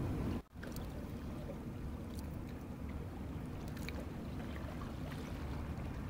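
Steady low rumble of outdoor seaside ambience, wind on the microphone and water washing against shoreline rocks, with a brief cut-out about half a second in.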